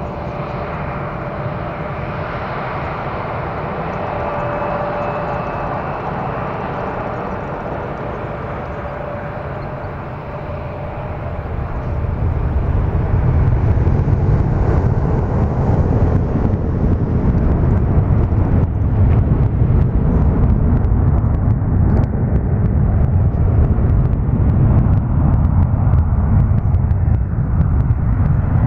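Jet engines of a taxiing Boeing 787 whining with steady tones. About twelve seconds in, a much louder low rumble builds and holds as an Airbus A380's four jet engines run up to takeoff thrust.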